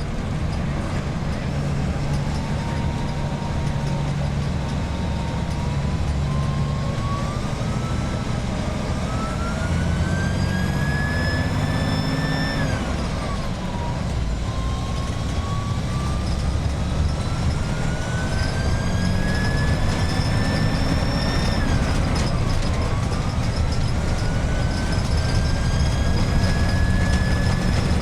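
Iveco 170S28 bus engine pulling on the road, with a shrill turbocharger whistle riding over its low running note. The whistle climbs slowly in pitch, drops sharply twice, about halfway and again about three quarters of the way in, as the engine comes off load between gears, then climbs again.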